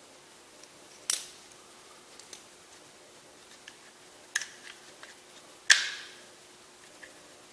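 Glock 19 Gen5 pistol parts being handled during a field strip: three sharp clicks, about a second in, at four and a half seconds and nearly six seconds in, the last the loudest, with a few faint ticks between.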